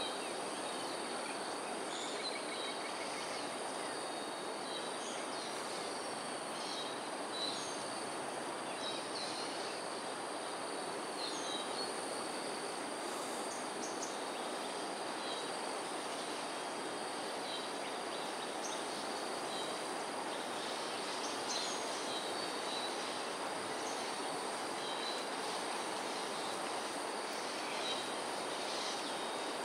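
Outdoor ambience: a steady, even background hiss with a constant high insect drone over it, and scattered short, high bird chirps throughout.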